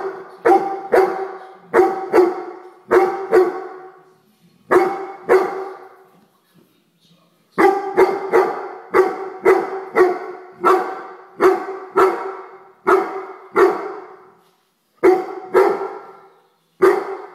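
A Weimaraner barking over and over at a housefly, in singles and quick pairs, with a brief pause about six seconds in.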